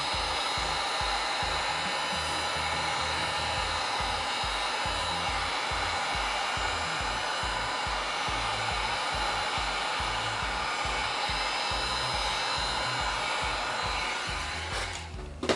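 Heat gun blowing steadily over freshly poured epoxy resin coasters to pop surface air bubbles; it stops near the end, followed by a sharp knock.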